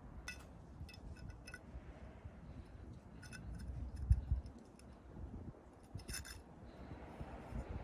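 Scattered light clicks and clinks of small hard objects, a few in quick succession near the start, more around the middle, and a short cluster about six seconds in.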